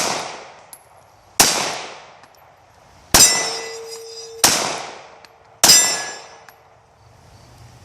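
Glock 17 9mm pistol firing five shots at an unhurried pace, each shot met at once by the ringing clang of a struck steel target that fades over about a second.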